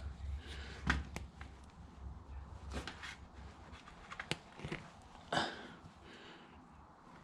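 Irregular clicks, knocks and scrapes of handling work, with the sharpest knocks about a second in and again after four and five seconds, over a faint low hum that fades out about halfway.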